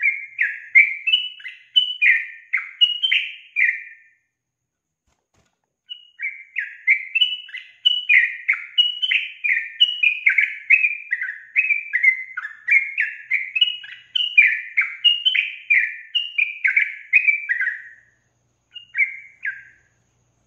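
Female yellow-vented bulbul singing: a quick, bubbly chatter of short notes, about three a second. It breaks off about four seconds in, resumes two seconds later and runs on for about twelve seconds, then gives two last notes near the end.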